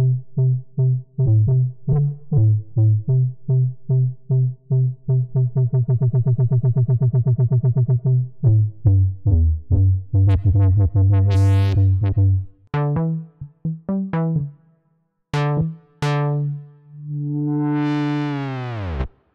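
Synth bass played on a ROLI Seaboard Block through the Equator plugin's 'Fat On The Wobble Bass' preset: repeated bass notes whose wobbling pulse speeds up into a fast, even throb, then sparser, brighter notes. Near the end a long held note slides steeply down in pitch.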